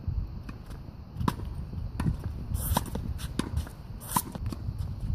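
Tennis rally on an outdoor hard court: a string of sharp knocks from the racket striking the ball and the ball bouncing on the court, roughly one every second, over a low steady rumble.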